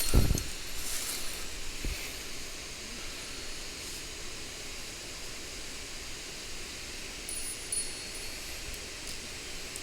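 Mountain stream water flowing steadily in an even rushing hiss, with a dull thump right at the start.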